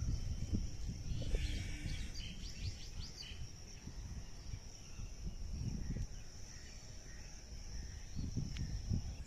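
Outdoor ambience with a low, uneven rumble of wind on the microphone and a steady high-pitched drone, with a quick run of bird chirps about one and a half to three seconds in.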